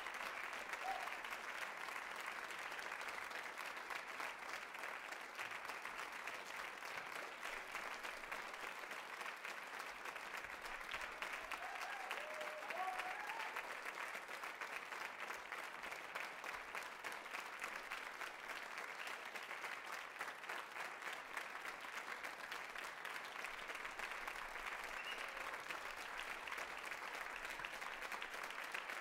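Large theatre audience applauding steadily, a dense, even patter of many hands clapping.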